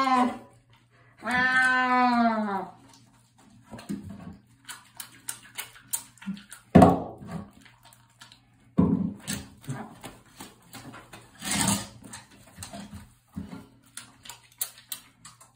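Wet black-and-white domestic cat yowling once in a small tiled shower, a long drawn-out meow about a second in that falls in pitch at its end. After it come scattered small knocks and rustles.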